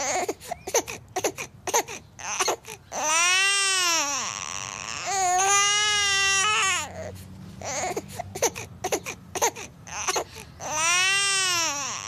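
A baby crying: three long wailing cries, each rising then falling in pitch, with short gasping, choppy sounds between them.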